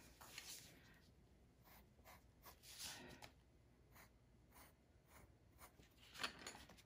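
Pencil scratching on drawing paper in short sketching strokes: faint scratches, a few at a time with pauses between.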